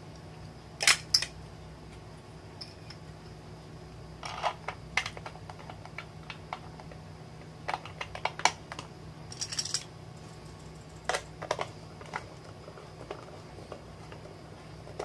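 Irregular clicks and light knocks of a plastic motion-sensor lamp holder being handled and screwed onto a wooden board, coming in small clusters a few seconds apart.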